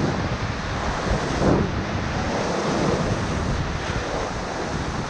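Whitewater rushing steadily through a Class IV rapid, heard from on the raft, with wind buffeting the microphone.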